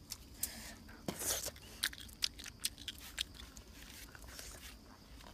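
Someone eating a charred, stick-grilled fish: chewing and biting with irregular crisp crunches and crackling clicks as the blackened skin is pulled apart.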